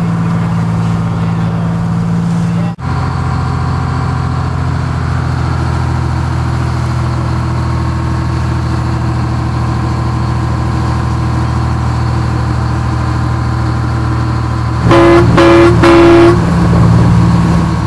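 Fishing boat's engine running steadily underway, with a brief break about three seconds in. Near the end a horn sounds three short, loud blasts.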